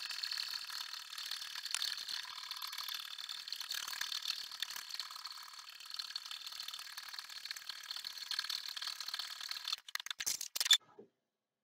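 Husqvarna Viking Designer Topaz 50 embroidery machine stitching lettering onto nylon webbing, a steady rapid mechanical running of the needle. It stops with a few clicks about ten and a half seconds in, when the letter is done.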